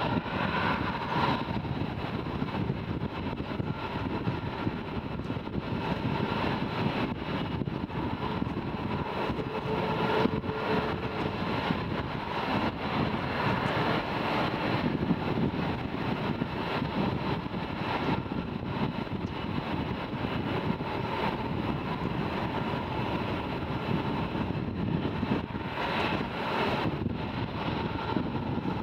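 Jet engines of taxiing F-22 Raptor fighters (Pratt & Whitney F119 turbofans) running at low taxi power: a steady rushing hum with a faint whine.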